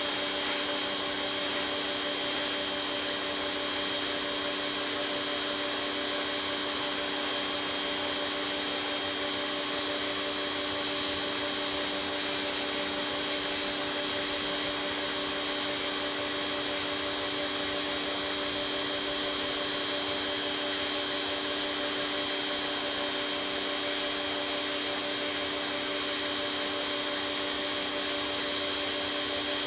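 Westinghouse ePX3500 electric pressure washer running steadily under spray, a constant motor-and-pump whine over the hiss of the water jet.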